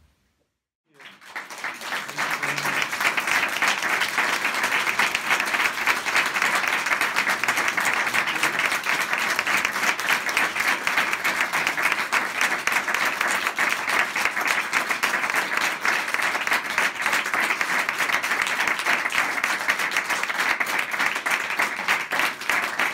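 Audience applauding, many people clapping at once. The applause starts about a second in, after a brief silence, and keeps a steady level.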